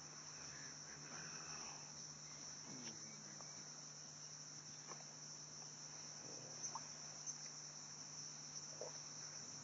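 Faint, steady, high-pitched insect chorus, with a low steady hum underneath and a few faint scattered ticks.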